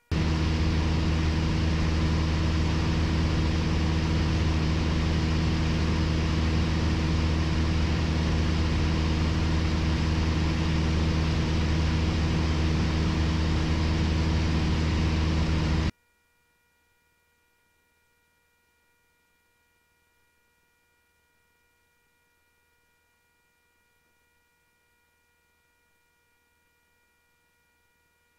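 Piper Warrior's four-cylinder engine and propeller droning steadily in cruise, heard inside the cabin as a loud, even hum with hiss. It cuts off abruptly about 16 seconds in, leaving near silence.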